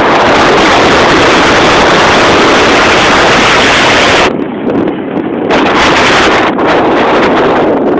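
Wind rushing hard over the microphone of a camera in a moving car, loud and steady, with the car's own road noise beneath it. About four seconds in it drops off briefly, then comes back in uneven gusts.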